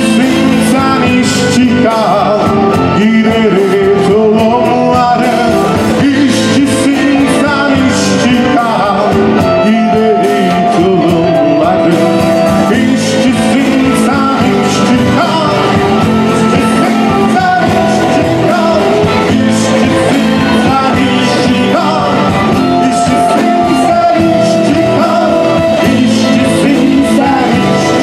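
Live band playing a song, with singing over keyboard and guitar.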